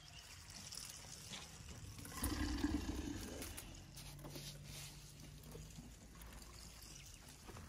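Elephant feeding in a thorny acacia bush: rustling of branches and crackling, crunching twigs as it pulls thorny branches to its mouth and chews them. The loudest stretch comes about two to three and a half seconds in.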